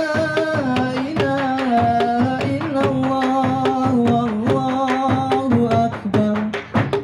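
Rampak bedug: a male voice sings long held notes that step up and down, over a quick, steady beat struck on large bedug drums.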